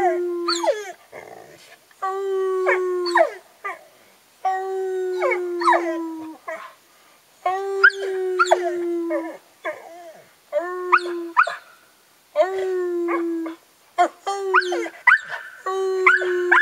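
A man and a Bruno de Jura hound howling together: a run of long howls, one every two to three seconds, each a held note with higher sliding cries over it.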